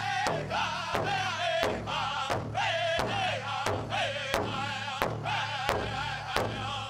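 Powwow drum group performing a chicken dance song: several voices singing in unison with a wavering melody over a big powwow drum struck together at a steady beat of about one and a half strokes a second.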